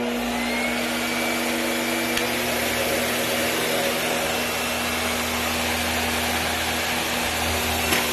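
Hoover Empower upright vacuum cleaner running steadily with a constant motor hum and airflow rush. A faint whine rises over the first couple of seconds as the motor comes up to speed, then holds steady.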